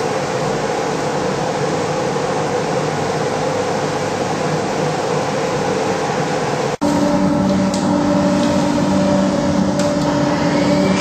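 Steady mechanical drone with a low hum. About two-thirds of the way through it cuts abruptly to a slightly louder steady drone with several clear humming tones.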